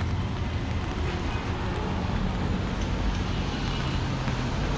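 Street traffic in the rain: a vehicle engine running close by, with a steady hiss of rain and traffic noise behind it.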